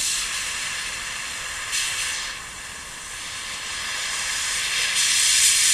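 Oxy-fuel torch flame hissing steadily as it heats steel rebar toward cherry red. The hiss dips about halfway through and grows louder near the end as the oxygen is turned up to make the flame hotter.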